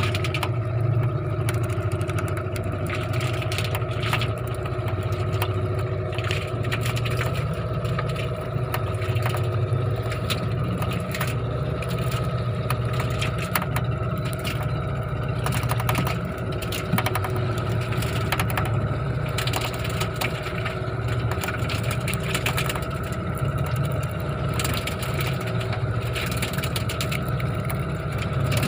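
A fishing boat's engine running at a steady speed, with scattered crackles and knocks over it.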